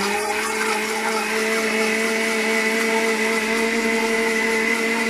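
Countertop blender with a glass jar running steadily at low speed, mixing egg, cream and honey. A steady motor whine that holds one pitch throughout.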